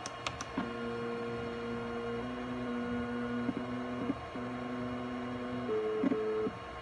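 A couple of clicks, then the P4 progesterone analyzer's scanning mechanism runs as it reads a test strip: a steady motor whine whose pitch steps up and down every second or so.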